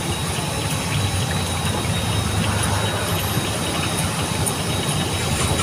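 Steady low rumble of motor traffic, with a constant hiss over it.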